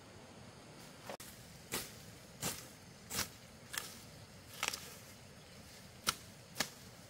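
A series of sharp knocks or chops, about eight of them at an uneven pace of roughly one every half second to second, starting about a second in.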